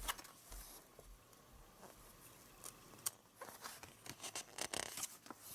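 Pages of a small paper mini comic being handled and turned: soft, scattered rustles and page flicks that grow busier in the second half, with one sharp click about three seconds in.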